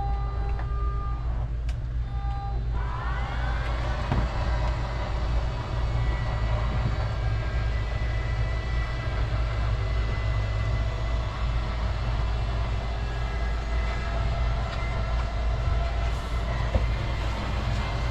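Fifth-wheel RV slide-out motor starting about three seconds in with a quick rising whine, then running steadily as the bedroom slide-out moves. A steady low hum sits under it.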